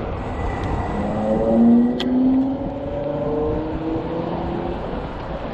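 Road traffic: motor vehicle engines accelerating with slowly rising pitch, over a steady rumble of wind and road noise, with a brief click about two seconds in.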